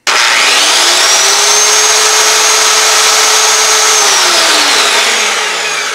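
Corded Craftsman circular saw with a 10-amp motor switched on: its whine rises as the blade spins up over about a second and a half and runs steady. About four seconds in it is switched off and winds down with falling pitch. It is running on inverter power from a 12 V lithium battery and starts without trouble.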